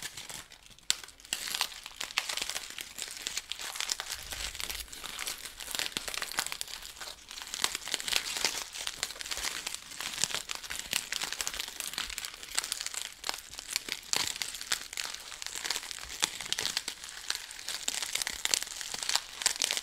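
Pre-crinkled aluminium foil crumpled and kneaded in the hands: a dense, continuous crackle of fine clicks, a Foley stand-in for a crackling fire.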